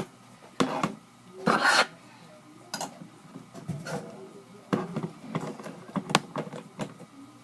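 Objects being handled and shifted on a hard surface: irregular clicks and knocks, with a short scrape about one and a half seconds in.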